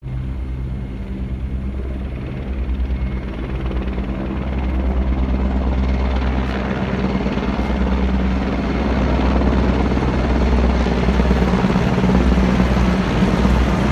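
Four army helicopters flying overhead in formation, their rotors beating steadily and growing louder as they approach.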